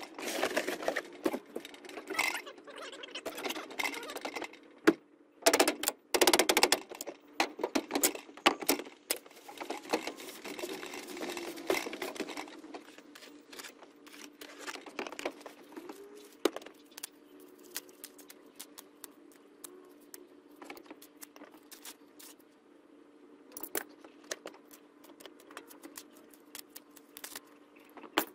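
Packing material being handled: a cardboard box and plastic wrap rustle and scrape, with clicks and knocks, loudest in the first dozen seconds. After that come lighter, scattered clicks as wooden and cardboard corner pieces and plastic strips are handled, over a faint steady hum.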